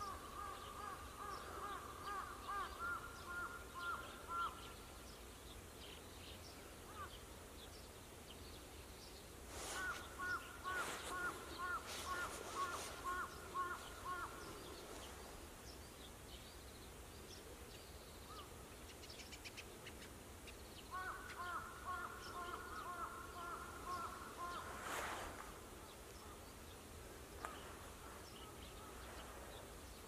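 Birds calling: three runs of quick repeated calls, each a few seconds long, near the start, about ten seconds in and about twenty-one seconds in, with a few short sharp calls in between, over a faint steady background.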